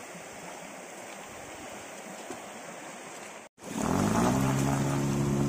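Steady hiss of running water and rain. Then, after a cut about three and a half seconds in, a boat's motor starts running steadily and loudly at a constant pitch.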